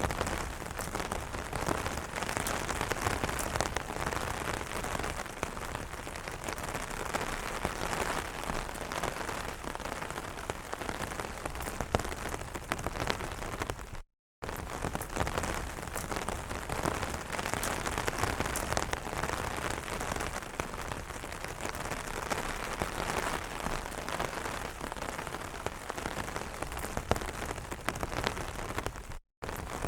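Rain pattering on an umbrella: a dense, steady spray of many small drop hits. It cuts out to silence for a split second twice, about halfway through and near the end.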